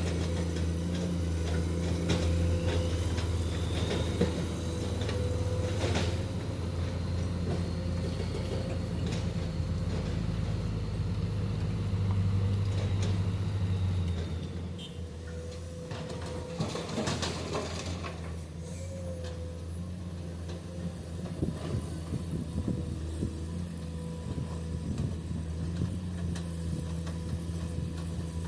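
Heavy diesel excavator (Komatsu PC210) working: engine and hydraulics running under load with a steady whine, easing off about halfway through. A few sharp knocks and clatters stand out, the clearest about a third of the way in and again just past halfway.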